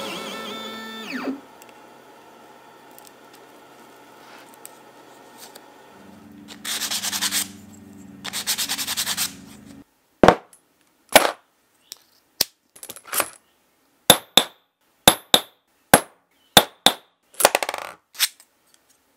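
Hammer striking steel number stamps into an aluminum nameplate on a steel bench block: about a dozen sharp metallic strikes through the second half, some in quick pairs. Before that come two short spells of a noisy whir.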